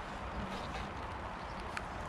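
Steady rain falling, an even hiss with a few sharp drop taps scattered through it.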